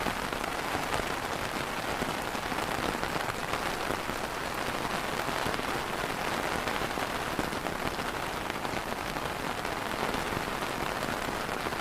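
Steady rain pattering on an umbrella canopy, a dense even patter of many small drop hits.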